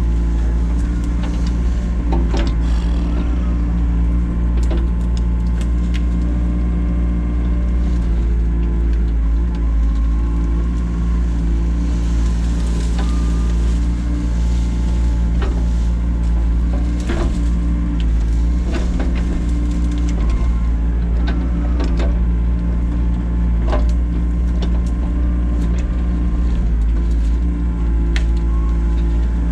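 Excavator engine running steadily under load while digging, with scattered clanks and knocks of the bucket and machine working through dirt and stones.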